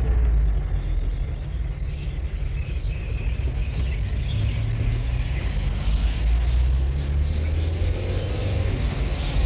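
Car driving slowly along a street, heard from inside the cabin: a steady low rumble of engine and road noise.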